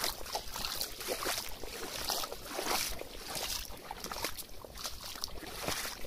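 Irregular splashing steps through shallow muddy puddles as golden retrievers and the walker with them wade along a waterlogged dirt track.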